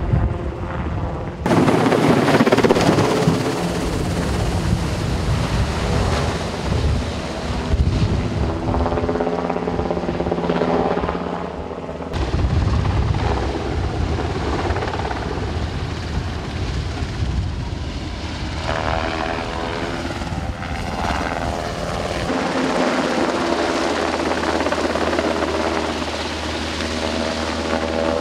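UH-60 Black Hawk helicopter flying overhead, its rotors and engines running steadily, with the sound changing abruptly a few times.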